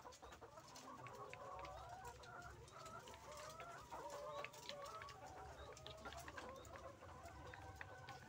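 Faint chatter of a flock of laying hens: many short, wavering clucks overlapping throughout, with scattered light clicks and taps.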